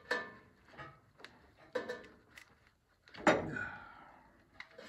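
Clicks and knocks of hands and tools working at the distributor of a 1995 Subaru Sambar engine, the loudest a knock about three seconds in that rings on for a moment.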